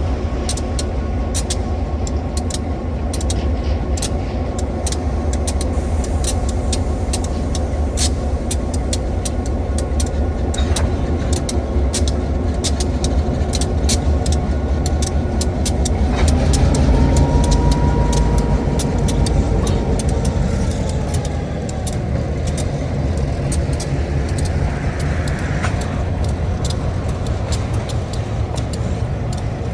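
Steady low vehicle rumble with frequent sharp clicks and knocks, growing louder about halfway through and then easing off.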